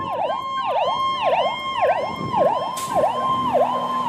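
Ambulance's electronic siren on a fast yelp, its pitch dipping sharply and swinging back up about twice a second. A short burst of hiss cuts in about three seconds in.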